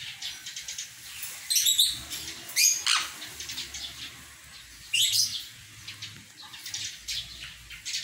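Sun conures calling: three loud, short, high calls about a second and a half, two and a half and five seconds in, with softer chirps between them.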